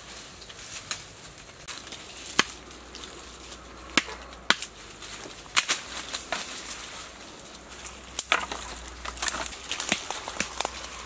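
Sharp chopping strikes of a blade into woody stems and brush, single blows a second or more apart. Near the end comes a quicker run of small cracks and rustles of twigs and leaves.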